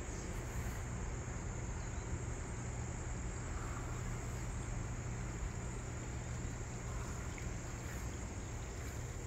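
Steady high-pitched chorus of crickets over a constant low hum, with a few faint short chirps now and then.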